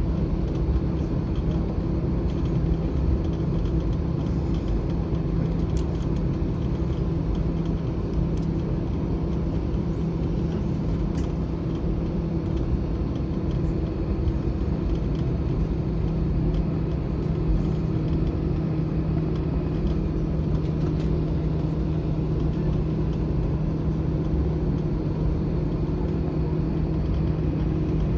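Steady cabin noise of an Airbus A321 taxiing, its jet engines at idle thrust, heard from inside the passenger cabin as an even drone with a low steady hum.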